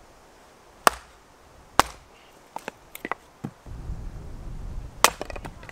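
Gränsfors Bruk Wildlife hatchet splitting a small log on a chopping block: three loud, sharp knocks with lighter taps between them. Wind rumbles on the microphone from a little past halfway.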